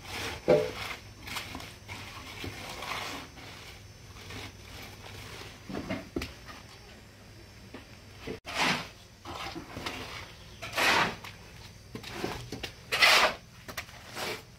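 Masonry work with wet concrete: a trowel scraping and patting cement on concrete steps. From about eight seconds in come three loud rasping scrapes of a hand tool stirring mortar in a bucket.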